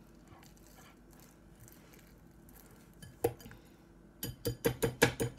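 A whisk beating thick pancake batter in a bowl: a single knock, then about four seconds in a fast, regular clinking of roughly six strokes a second.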